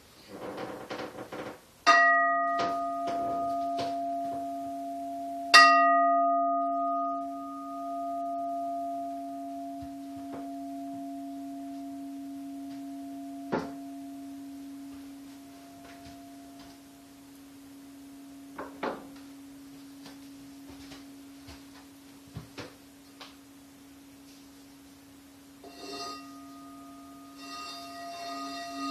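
Singing bowl struck twice, about two seconds in and again a few seconds later. Each strike rings on as a long, slowly fading low tone with fainter higher overtones. A few light taps sound during the ring, and it is struck again near the end.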